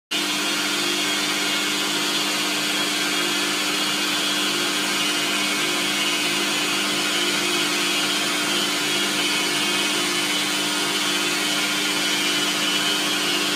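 Metalworking machine tool running steadily: a constant motor hum with a hiss above it, unchanging throughout.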